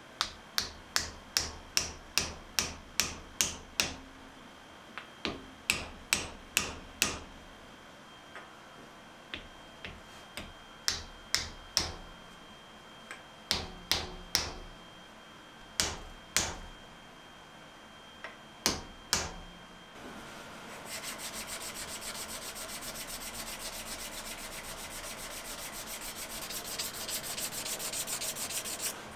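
Sharp taps on a wooden block held on top of a wooden handle, driving the handle down onto the tang of a forged curved drawknife clamped in a vise. The taps come in quick runs of about two to three a second, with a faint ring from the steel. About twenty seconds in they give way to steady hand-sanding of the wooden handle with sandpaper.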